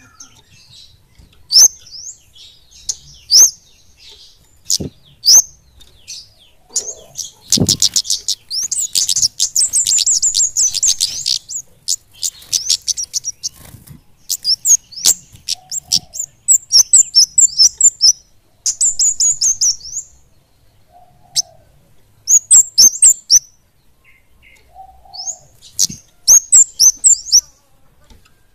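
Small flowerpeckers (kemade) singing: sharp, very high chip notes and fast, tightly packed trills in bursts with short pauses between them. A single low thump comes about seven and a half seconds in.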